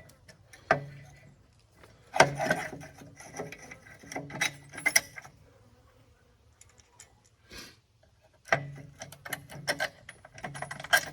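Metal clanking and rattling from steel parts and hand tools as a homemade pipe-laying attachment is bolted onto the back of a tractor subsoiler. The knocks come in two main bunches, with a quiet stretch between.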